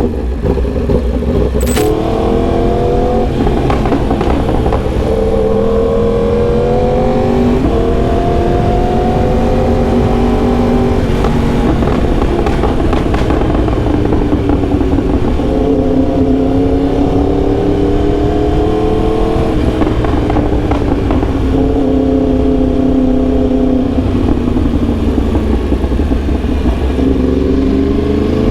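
Yamaha R1M's crossplane inline-four engine pulling under load. Its pitch climbs steadily in stretches and steps abruptly several times, as with gear changes, over a steady low rumble.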